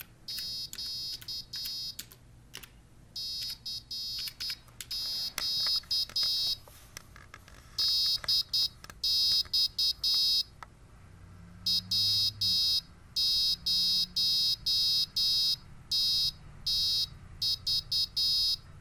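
A piezo speaker driven by a 555-timer oscillator beeps out a typed Morse code message, 'CQ CQ DX' and a call sign, as high-pitched short and long tones with gaps between letters and words. Keyboard keys click among the first few seconds of beeps.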